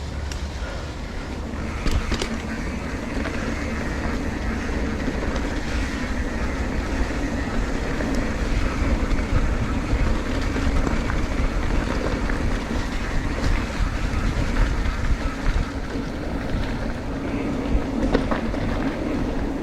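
Motorcycle under way: steady engine hum mixed with wind rushing over the microphone, with a few brief knocks.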